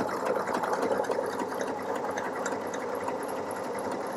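Pfaff Ambition 610 computerized sewing machine running steadily, stitching an applique stitch through stretch fabric with a fast, even patter of needle strokes.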